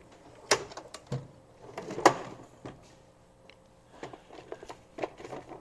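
Steel tool chest drawers being shut and opened, with loose sockets and hand tools clanking inside, then a hand rummaging among pliers and wrenches. A string of sharp knocks, the loudest about two seconds in, then softer rattling near the end.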